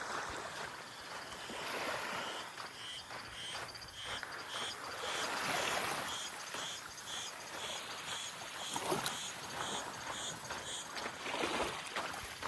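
Small waves washing onto a sandy beach, the surf swelling and falling back. Through most of it a short, high-pitched chirp repeats about twice a second.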